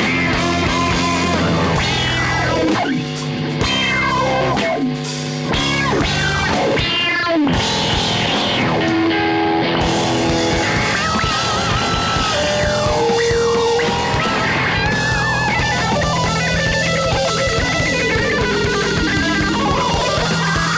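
Live instrumental rock trio playing: an electric guitar plays lead lines with wavering held notes and pitch slides, over bass guitar and a drum kit.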